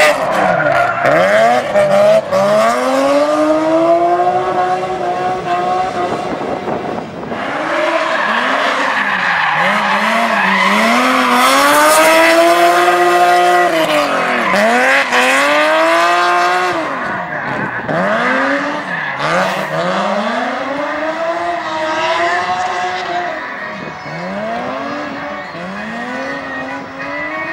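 BMW E36 drift car's engine revving up and down again and again as the car slides sideways, its tyres squealing throughout.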